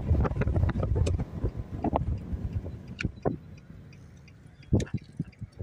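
Car on the move: low road rumble with wind buffeting the microphone, fading away over the first few seconds, then a couple of sharp clicks near the end.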